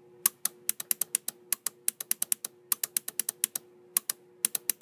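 SPDT relays of a homebuilt relay computer clicking in quick irregular clusters, several a second, as its flip-flop register counts down in binary. A faint steady hum runs beneath the clicks.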